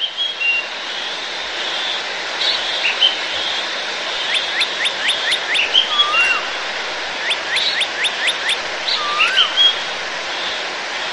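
Birds calling over a steady rushing noise. Twice, about four and about seven seconds in, a bird gives a quick run of about six rising whistled notes, followed each time by a single rising-then-falling whistle, with short chirps scattered throughout.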